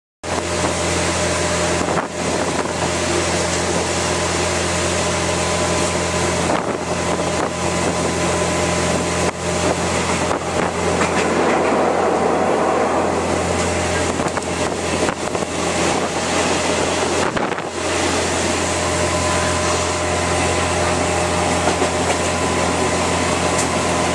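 Passenger train running, heard from inside a carriage with open windows: a steady rumble with a low hum, and wind rushing in. It starts suddenly just after the start.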